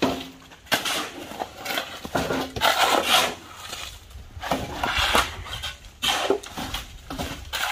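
Shovels and a hoe scraping and chopping through wet concrete mix on the ground, in a series of irregular strokes.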